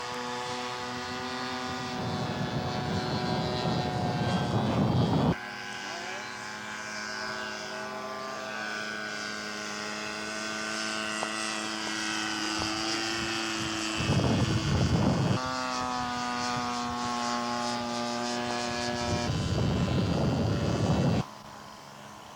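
Radio-controlled scale model airplane's engine running in flight, its pitch shifting slightly as the model flies its pattern. Three times, gusts of wind rumble on the microphone over it.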